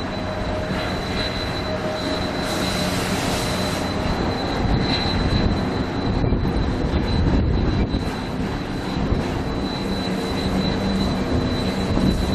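Narrow-gauge diesel locomotive running steadily as it hauls a passenger train slowly toward the listener, its engine a continuous low drone with a thin steady high whine over it.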